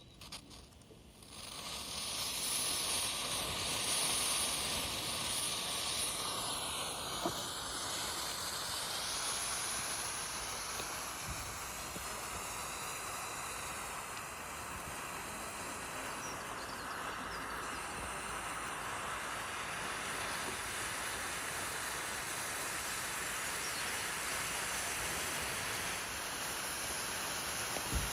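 Potassium nitrate and sugar rocket propellant burning as a steady jet of hiss, coming up about a second and a half in and holding evenly.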